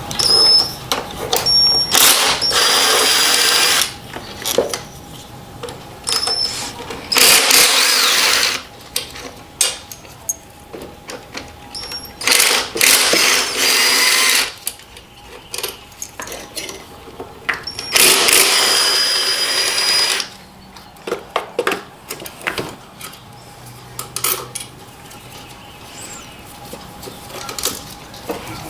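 Handheld power driver spinning out the throttle body's 10 mm bolts, four runs of about two seconds each with a steady whine, with clicks and knocks of the tool and metal parts between runs.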